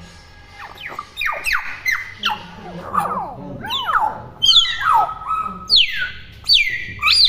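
Hill myna whistling and calling without pause, a rapid run of loud sliding whistles, most falling in pitch and some rising.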